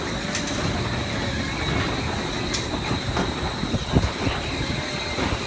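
Carnival kiddie motorcycle ride turning: a steady mechanical rumble and rattle with a few sharp clicks, and a thump about four seconds in.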